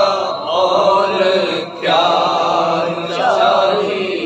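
Unaccompanied devotional chanting of a naat: a voice drawing out long melodic phrases, with a short break about two seconds in.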